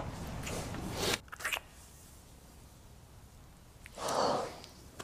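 Close kissing sounds: short wet lip smacks clustered about a second in, then a heavier breath about four seconds in.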